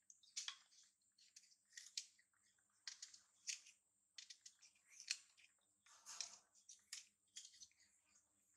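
Faint, irregular crunches and clicks of crisp fruit (apple or pear) being bitten, chewed and sliced with a knife.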